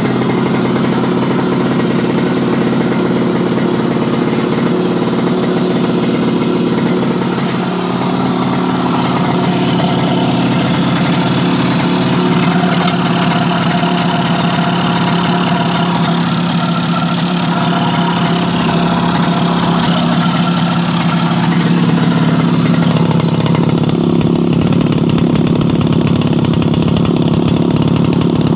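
Yamaha YL2C 100 Trailmaster's single-cylinder two-stroke engine idling steadily, running better with a new magneto-side crankshaft seal fitted. The owner still suspects a carburetor fuel problem, possibly the float.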